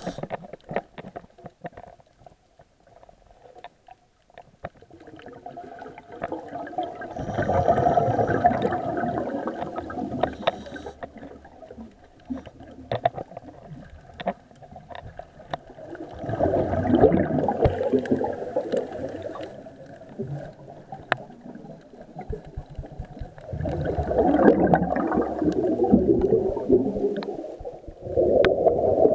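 Underwater sound heard through a camera housing: bubbling from swimmers' exhaled air in three long stretches of several seconds each and a short one near the end, with scattered clicks and crackles between them.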